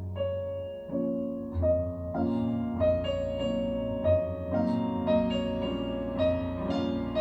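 Piano playing an instrumental passage of a slow ballad, struck notes and chords about every half second over a sustained low bass.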